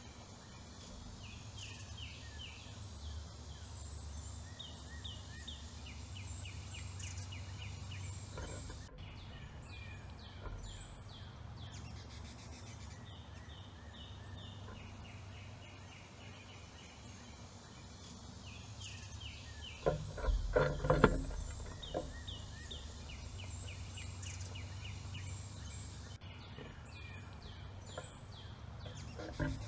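Songbirds singing short notes repeated in quick phrases, over a steady background hiss and low rumble. About two-thirds of the way through there is a short cluster of knocks and thumps, the loudest sound here.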